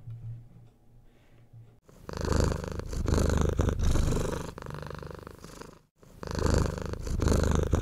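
Domestic cat purring close up. It starts about two seconds in, rising and falling in louder and softer stretches of a couple of seconds each, and breaks off briefly about six seconds in.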